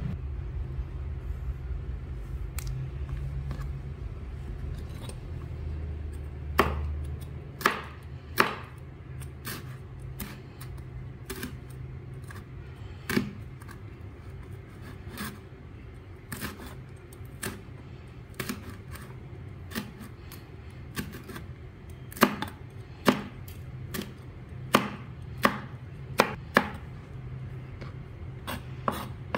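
Kitchen knife chopping on a plastic cutting board while slicing red chilies: sharp single taps at uneven intervals, about one a second, coming more closely together near the end, over a low steady hum.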